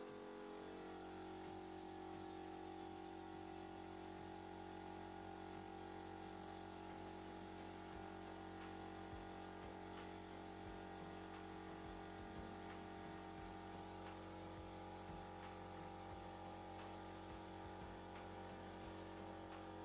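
Faint, steady hum with a light hiss: the air compressor running and the hose-fed spray gun spraying PU polish.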